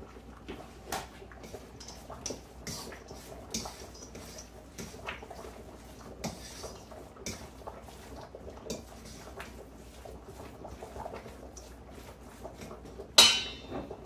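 A hand mixing chopped bacon into eggs and Parmesan in a stainless steel bowl, with scattered light clicks and clinks against the bowl. Near the end comes one sudden loud hissing burst lasting about half a second.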